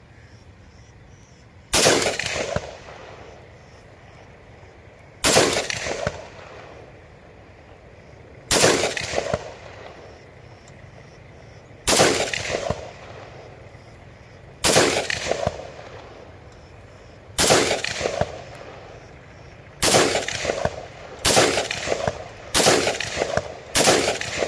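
Pakistani-made AKM-style rifle in .223 fired in single shots, ten times: about every three seconds at first, then faster, four shots about a second and a half apart near the end. Each sharp report is followed by an echo that rolls on for about a second.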